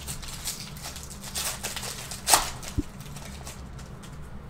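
Panini Chronicles basketball trading cards being flipped through by hand: light slides and rustles of card stock, with a sharper click about two seconds in and a short low thump just after.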